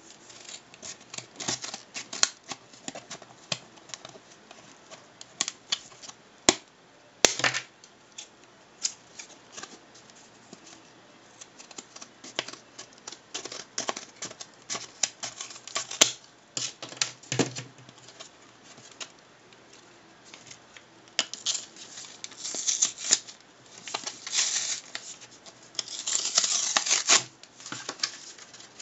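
Plastic retail packaging of an SD memory card being handled and opened by hand: an uneven run of clicks, crackles and crinkles, with longer stretches of crinkling plastic near the end.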